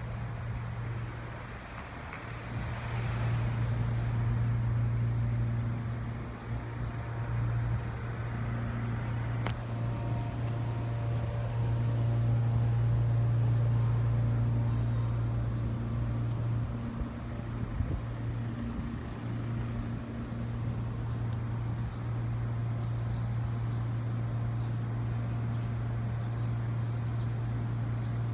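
A steady low hum of a running motor or engine.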